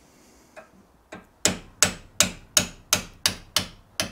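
Hammer blows on a steel punch, driving a bush into a bore. Two light taps come first, then a steady run of sharp strikes, about three a second.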